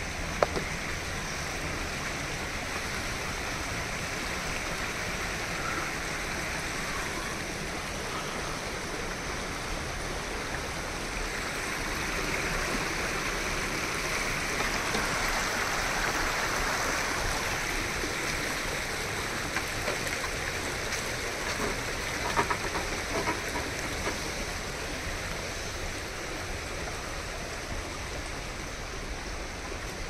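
Steady rush of a forest stream's flowing water, swelling a little through the middle, with a few faint clicks about two-thirds through.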